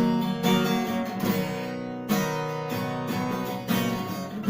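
Acoustic guitar strumming chords, a fresh strum about every half second to a second, each chord left to ring.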